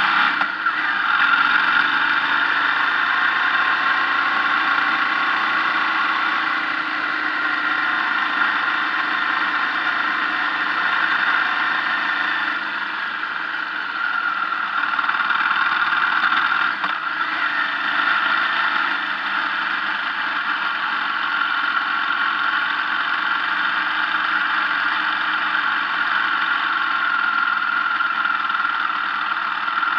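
Motorcycle engine running at a steady pace while riding, with road and wind noise, heard through the bike's onboard camera.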